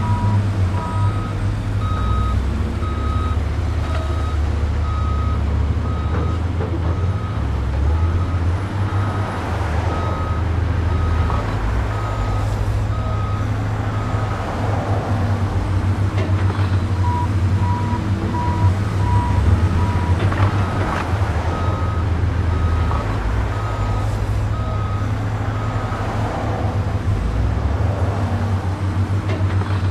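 A truck's reversing alarm beeps at an even pace over a low, steady diesel engine rumble. The beep shifts in pitch a few times, running higher for most of the stretch and lower for a while in the middle.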